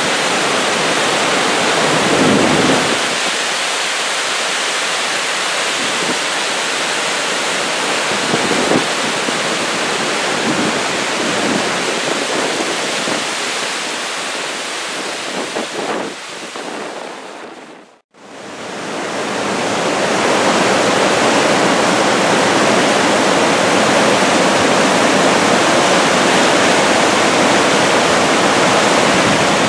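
Floodwater of a stream in spate rushing in steady whitewater over its banks and around trees. The sound drops out briefly about two-thirds of the way through, then comes back.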